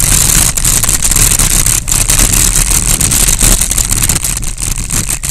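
Bicycle rolling fast down a rough gravel-and-rubble track: steady wind buffeting on the action camera's microphone over the rumble of the tyres, with frequent small clicks and knocks from the bike jolting over stones.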